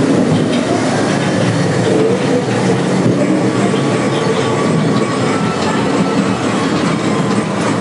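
Ghost-train ride car running along its track, a loud, steady rumble and rattle of the car on its rails.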